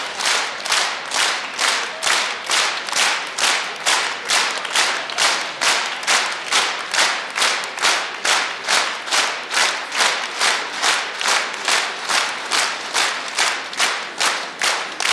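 A large audience clapping in unison, a steady rhythm of about two and a half claps a second.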